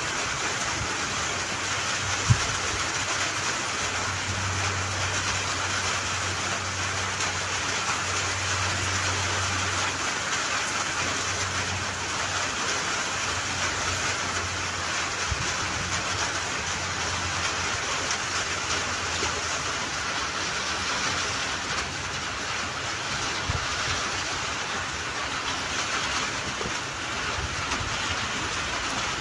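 Gentle, steady rain falling: an even, continuous hiss.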